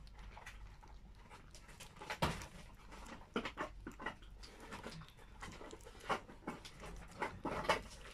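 A cat eating soft mousse-textured wet food from a plate: irregular wet smacking and lapping of jaws and tongue, several small clicks a second.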